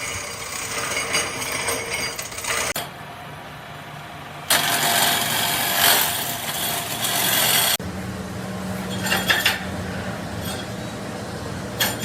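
Metal fabrication workshop machinery running, in short edited clips that change abruptly: clattering machine noise, a louder hissing stretch in the middle, then a steady hum with a few sharp knocks.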